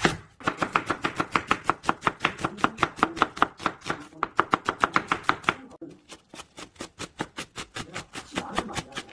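Chef's knife chopping on a wooden cutting board in rapid, even strokes, about five a second, slicing a peeled onion. After a brief pause about six seconds in, the strokes go on more softly as napa cabbage leaves are shredded.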